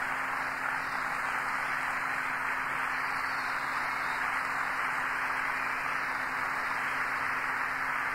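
Large audience applauding steadily, a dense even wash of clapping, on an old recording with a faint steady hum.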